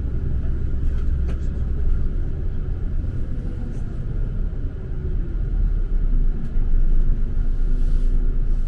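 Steady low rumble of a motor vehicle in motion, heard from on board, with a faint engine hum.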